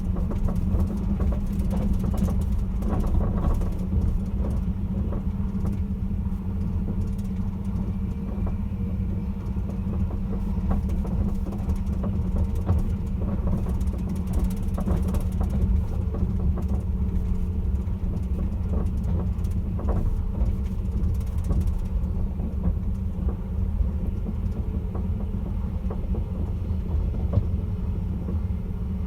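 Caledonian Sleeper train: a steady low rumble with many light clicks and rattles throughout.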